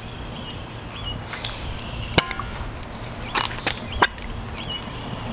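A crow cawing a few harsh times in the background, with a couple of sharp metallic clicks as parts on a Turbo 400 transmission's valve body are handled.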